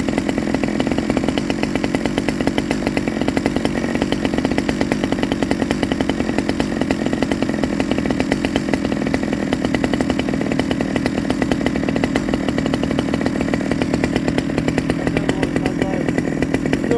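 Stihl 009 top-handle chainsaw's small two-stroke engine running steadily with a fast, even firing beat and no change in speed. It is running too rich, as the owner judges during carburettor tuning.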